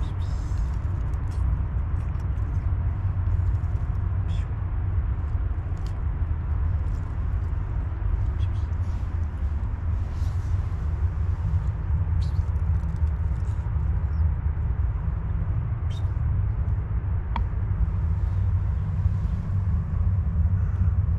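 Steady low outdoor rumble, with faint clicks scattered through it.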